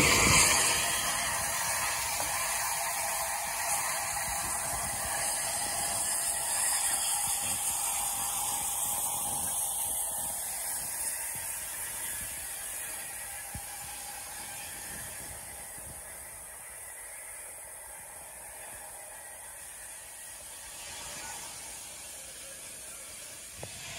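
Southern Railway Bulleid Battle of Britain class steam locomotive 34072 moving slowly away: a fast, ratchet-like clatter of its wheels and motion, fading steadily as it goes.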